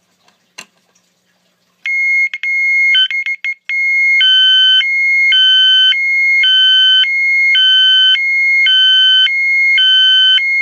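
Knock-off SpectrAlert-style fire alarm horn, powered from a 9-volt battery, sounding a loud high-low two-tone signal. It comes on about two seconds in with a steady tone that cuts in and out briefly, then settles into an even alternation between a higher and a lower pitch, switching about every half second.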